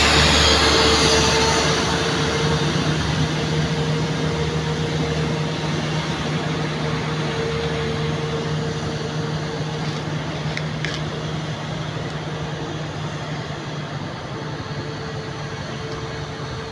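Engines of heavily loaded trucks running as they work around a hairpin bend: a steady drone that fades gradually as the trucks move away. A brief pair of faint high ticks comes a little past the middle.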